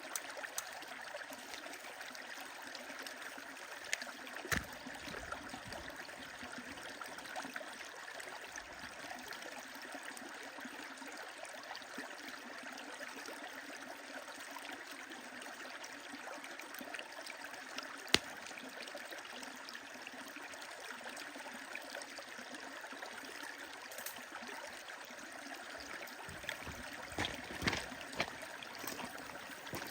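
A stream flowing steadily, with scattered sharp crackles and pops from a wood fire. The loudest pop comes about eighteen seconds in, and a quick run of pops comes near the end.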